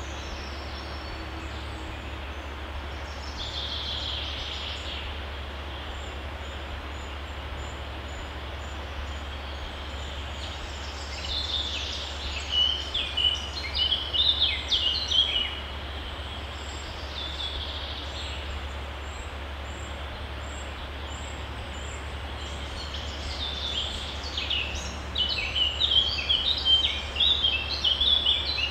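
Stream water running steadily, with a songbird singing over it in three phrases of quick high notes: a short one about three seconds in, a longer run midway and another near the end.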